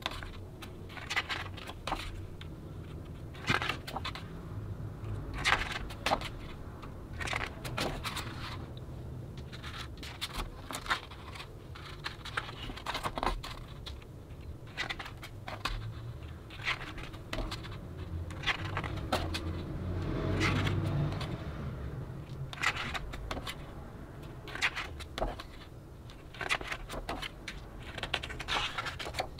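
Glossy photobook pages being turned by hand: repeated crisp paper rustles and flaps, with short sharp taps and a longer sliding rustle about two-thirds of the way through.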